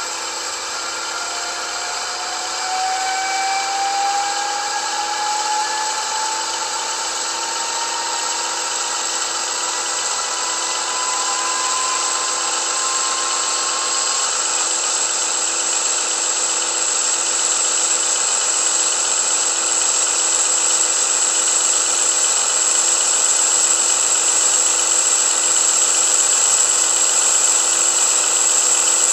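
Sound decoder of an H0 model DB class 216 diesel locomotive playing the recorded diesel engine sound through its small on-board speaker as the model moves off and runs slowly. A whine rises steadily in pitch over the first half, over a steady high tone, and the sound grows slightly louder throughout.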